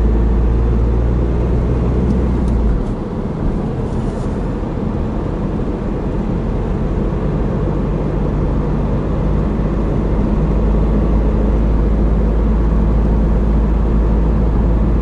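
Car cabin noise while driving: a steady low engine and road-tyre rumble heard from inside the car. It eases off about three seconds in and then builds back up.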